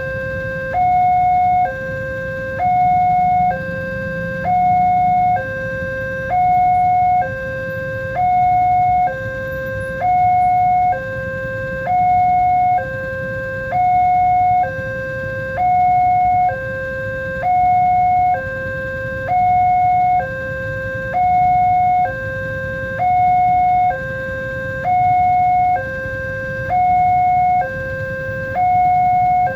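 Railway level crossing warning alarm sounding: an electronic two-tone signal alternating between a lower and a higher tone about once a second, the higher tone louder, over a steady low rumble.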